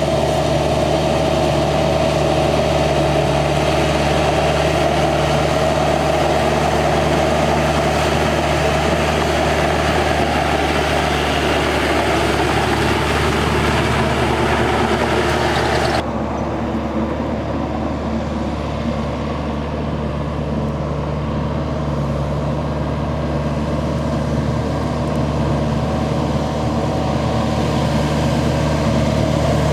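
Yanmar YM 348A tractor's diesel engine running steadily at constant speed. A little past halfway the sound changes abruptly, becoming duller and slightly quieter, with the upper hiss gone.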